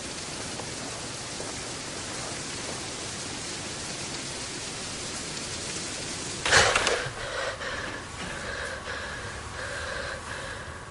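A steady hiss of noise, broken about six and a half seconds in by a sudden loud thump, after which two faint steady tones hold.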